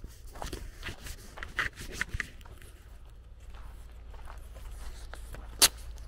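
Footsteps on a dirt and gravel road, a series of irregular crunching scuffs, mostly in the first half, with one sharp loud click near the end.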